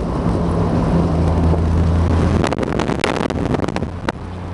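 Triumph sports car's engine running steadily under way, heard from inside the car. About two and a half seconds in the engine drops off, and a quick run of sharp clicks and knocks follows.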